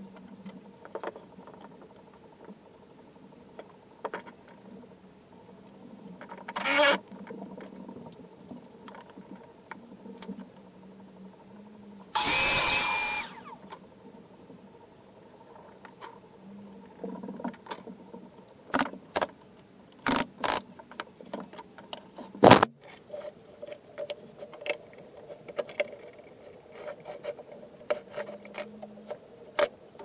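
Wood pieces and hand tools knocking and clattering on a workbench as a small wooden birdhouse is assembled: scattered sharp clicks and knocks, busiest in the second half. About twelve seconds in there is one loud burst about a second long.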